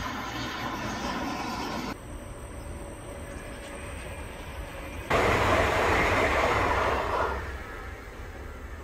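Passing trains running on the track: a steady rumble and rail noise that changes abruptly twice, loudest between about five and seven seconds in, then fading as a train moves away.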